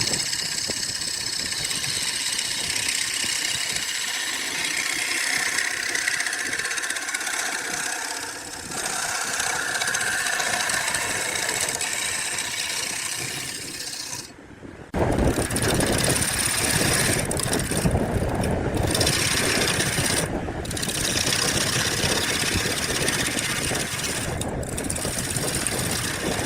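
A machine running steadily, then an abrupt change about 15 seconds in to a louder, coarser running noise broken by a few very brief dropouts.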